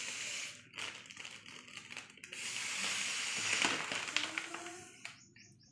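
A child blowing air by mouth into a foil (mylar) letter balloon: breathy hissing blows, a short one at the start and a longer one from about two to almost five seconds in, with crinkling and small clicks of the foil in the pause between them.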